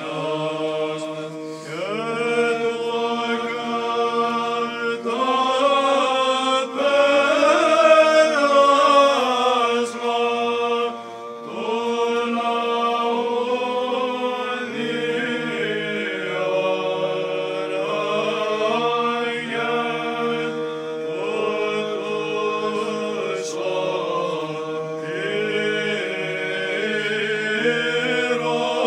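A small group of male chanters singing an Orthodox church hymn, a melody that moves over a steady held note, with a short breath pause about a third of the way through.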